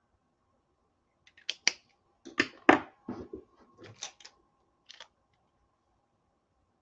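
A string of about a dozen sharp clicks and knocks, starting about a second in and loudest near the middle, over a faint steady hum.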